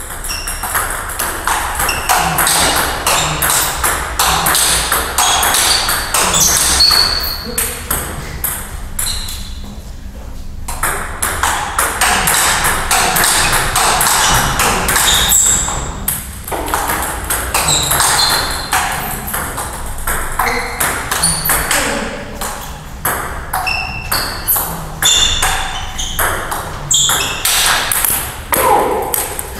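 Table tennis rally with a 40+ ABS plastic ball: quick sharp pings and clicks as the ball strikes the bats and bounces on the table. Brief breaks about ten seconds in and again around sixteen seconds.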